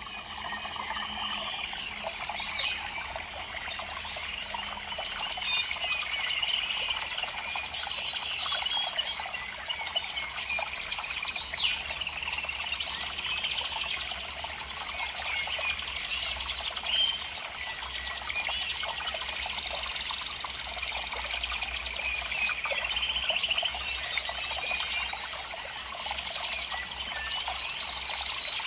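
Many small birds chirping and trilling at once, a continuous overlapping chorus of high calls and rapid trills.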